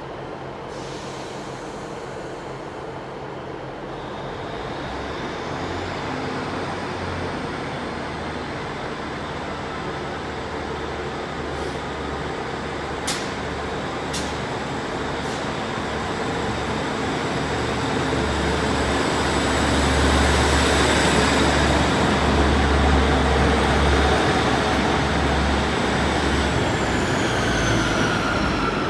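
Class 150 Sprinter diesel multiple unit's underfloor diesel engines running at the platform, a low rumble that grows louder through the middle, with a steady high whine above it and two sharp clicks about halfway through.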